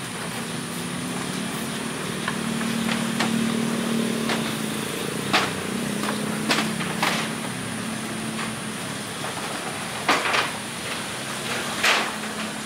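A motor runs with a steady hum, and several sharp clicks and knocks sound over it, most of them in the second half.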